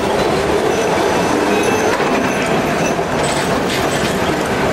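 Metre-gauge Cairo tram running past at close range: a steady rumble of its wheels on the rails and its car body.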